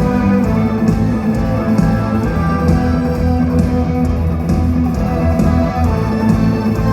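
Live concert music: a band playing loud and steady, with guitar prominent over a heavy bass.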